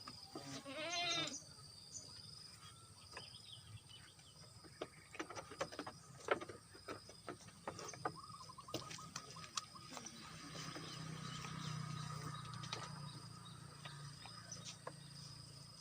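A goat bleats once about a second in, a short wavering call, followed by scattered light clicks and knocks.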